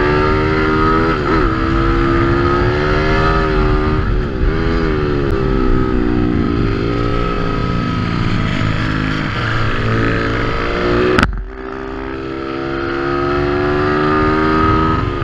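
140cc four-stroke single-cylinder pitbike engine heard from an onboard camera, held at high revs with brief dips in pitch about one and four and a half seconds in as the throttle is eased or a gear changes. About eleven seconds in the sound cuts off abruptly, then the engine is heard again, its note climbing steadily.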